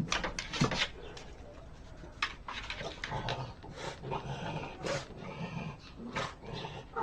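A dog making low sounds amid a run of short sharp knocks and clicks.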